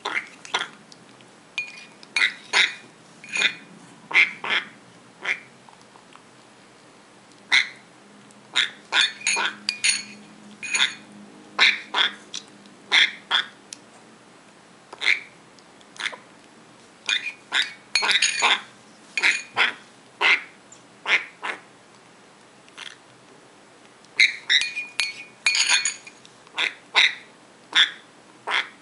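African grey parrot chick making short, repeated begging calls while being spoon-fed formula. The calls come in clusters with short pauses between them.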